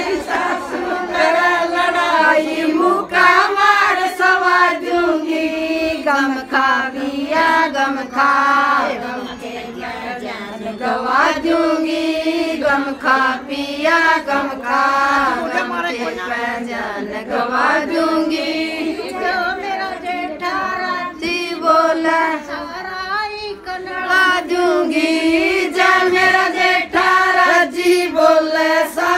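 Women's voices singing a Haryanvi folk song together, with no break in the singing except short pauses between lines.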